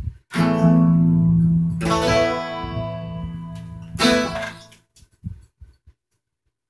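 Hollow-body electric guitar strumming the closing chords of a song: three strums, the second about a second and a half after the first and the third about two seconds later. The last chord rings briefly and dies away a little before five seconds in.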